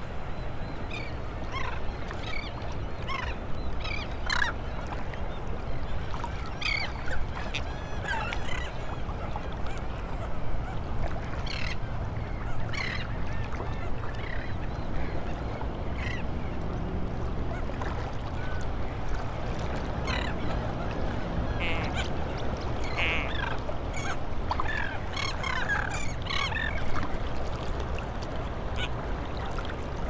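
A large mixed flock of royal terns, black skimmers and gulls calling: many short calls overlap and come scattered throughout, thickest in the first few seconds and again a little past the middle, over a steady low rush.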